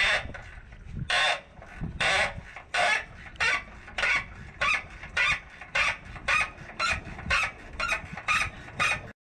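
Hand ratchet wrench clicking in repeated strokes on a rusted muffler bolt, speeding up from about one stroke a second to about two a second. It cuts off suddenly near the end.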